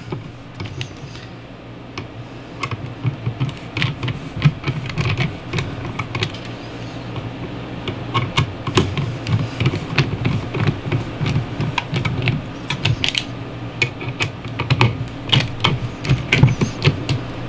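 Irregular small metallic clicks and ticks as a 2.5 mm hex bit turns the adapter's mounting screws into the rifle receiver a few turns at a time, tightening them by hand until the mount sits flush. The clicks are sparse for the first few seconds and come thicker later on.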